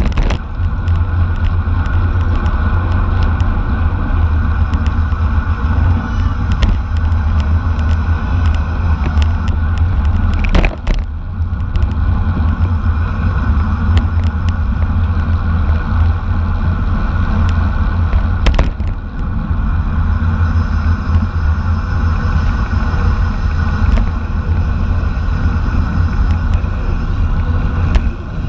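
Heavy wind buffeting on the microphone, a loud steady low rumble as from a bicycle moving at race speed, with a few sharp clicks, the clearest about 11 and 19 seconds in.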